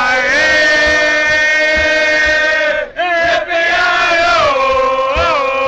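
Men's voices singing a comic cowboy song together, holding long drawn-out notes, with a brief break about three seconds in.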